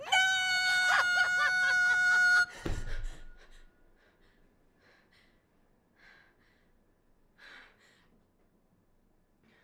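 A loud, steady high note held for about two and a half seconds with laughter over it, then a sweep falling quickly to a low rumble as it cuts off. After that, a woman's faint breaths and gasps, a few seconds apart.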